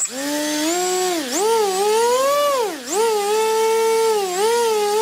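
Small 1806 2400kV brushless motor spinning a 5x4.5 propeller, run up on the bench under throttle. It makes a high whine that starts suddenly, climbs in pitch, drops sharply twice, then holds fairly steady with one smaller dip.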